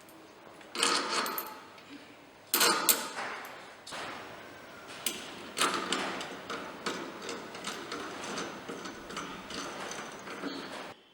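Metal clanking, knocking and scraping as a milling head is fitted onto a spindle moulder's spindle and secured, with a few sharp metallic knocks among lighter rattles; the machine itself is not running.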